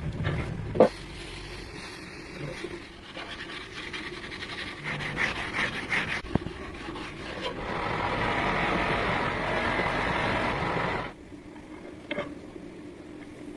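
Abrasive scraping on a knife blade: irregular rubbing and filing strokes, with a sharp knock a little under a second in, then a louder, steadier stretch of scraping for about three seconds before it dies down.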